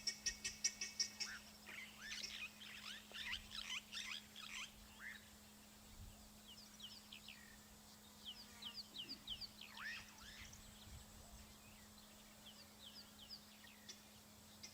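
Helmeted guineafowls giving harsh, rapid rattling alarm calls, loudest in the first couple of seconds, then thinning into scattered short chirps and falling whistles. A steady low hum runs underneath.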